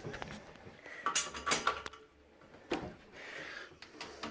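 Scattered clinks and knocks of tools and metal fittings being handled on a radiator pipe, several short sharp strikes about a second apart.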